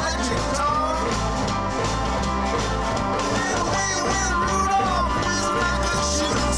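Live rock band playing: electric guitars, bass guitar and drums, with a singer's voice over the top and a steady beat.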